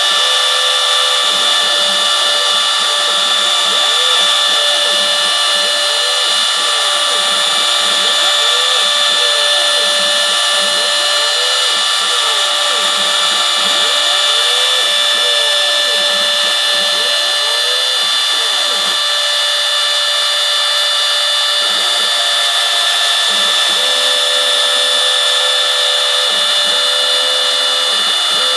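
Homebuilt CNC router running steadily as it mills pockets in florist foam: the spindle gives a steady high whine, while a lower tone rises and falls again and again as the motors drive the cutting head back and forth.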